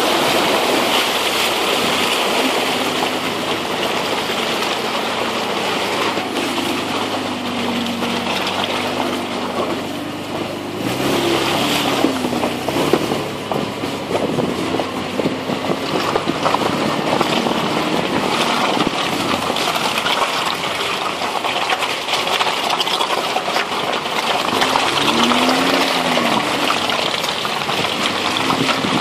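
Toyota Land Cruiser 4.5 VX engine pulling the truck along an off-road trail, its note rising and falling several times, over a constant rush of tyres through mud and water and wind on an outside-mounted microphone.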